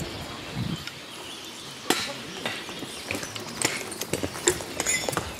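Irregular knocks and metallic clinks from a horse logging team at work, hooves and harness chains, with a sharper knock about two seconds in and another near the end.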